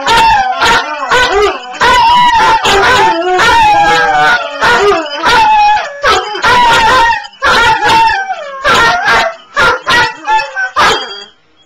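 A Vizsla and a Weimaraner howling together in long, wavering, overlapping howls mixed with yips and barks. Over the last few seconds the howls break into shorter yelps, then stop just before the end.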